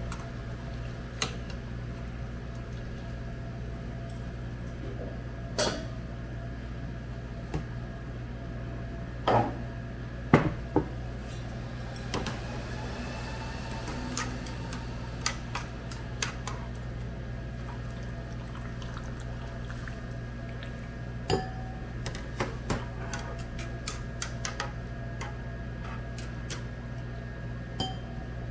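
Chopsticks tapping and scraping against a nonstick frying pan as a block of instant noodles is loosened in water, with scattered sharp clicks, the loudest about ten seconds in. A steady low hum runs underneath.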